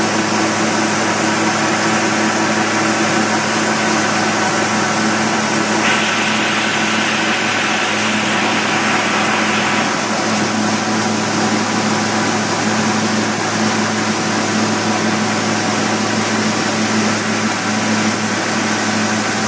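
Large metal-working machine tool running on a thick steel bar, with a steady hum and hiss. About six seconds in, a stronger hiss comes in for about four seconds, then drops back.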